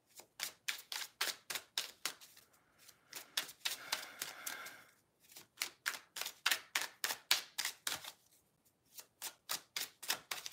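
Tarot deck being shuffled by hand, overhand: a quick run of card slaps, about five a second, with a smoother sliding stretch around four seconds in and a short pause a little after eight seconds.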